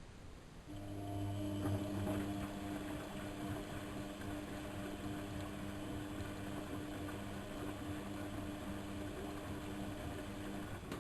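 Lloyds 825 washing machine running: a steady mechanical hum starts about a second in and stops about ten seconds later.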